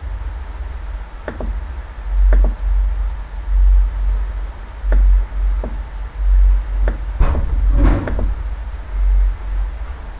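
A few sharp computer mouse clicks over a low, uneven rumble on the microphone that swells and fades about every second and a half.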